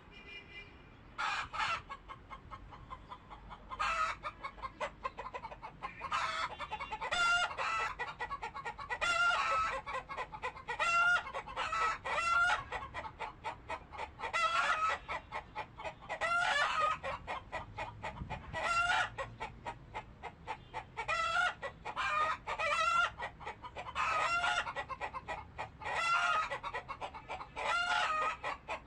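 Chickens clucking and calling over and over, several calls in quick clusters, with no pause.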